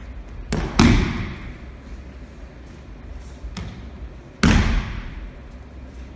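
Aikido breakfalls: a thrown partner landing on the tatami mats with a loud slap, a quick double strike about half a second in and a single one about four and a half seconds in, each ringing out in the gymnasium's echo.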